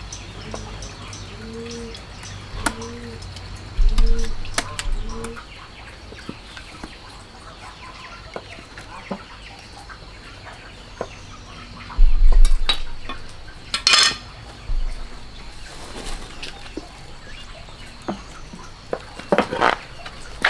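A chicken clucking in a regular run of short calls through the first five seconds, among scattered knocks and clatter, with two loud thumps about four and twelve seconds in.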